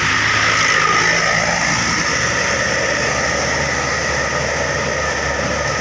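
A large tour bus driving past, its diesel engine running steadily under a constant road hiss.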